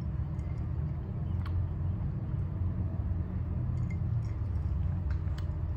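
A steady low background rumble with a few faint clicks.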